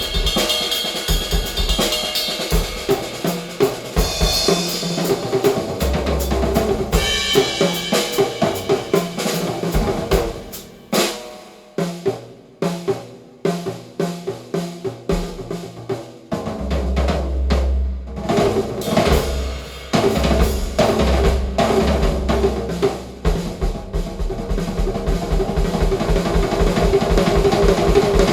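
A drum-kit percussion track played loud through a home hi-fi system with Heil AMT tweeters and REL subwoofers: fast kick, snare and cymbal hits. About halfway through it thins to sparse single hits, then deep bass drum comes back in and the busy playing builds again.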